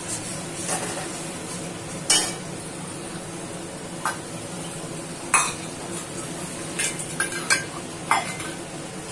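Flat metal spatula stirring and scraping a thick curd-and-onion masala in a metal kadai, clinking sharply against the pan now and then: loudest about two seconds in and again past five seconds, with a quick run of clinks near the end. The masala sizzles steadily underneath.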